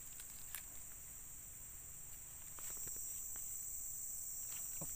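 Insects shrilling steadily with a high-pitched hum that grows louder about two and a half seconds in, with a few faint clicks.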